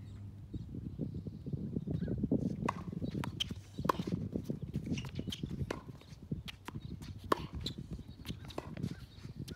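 Tennis rally on an outdoor hard court: irregular sharp pops of racket strings striking the ball and the ball bouncing, with quick footsteps and shoe scuffs on the court surface.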